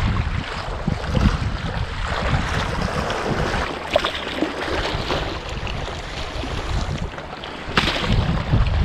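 Wind buffeting the microphone over the wash of the sea, with a sharp click near the end.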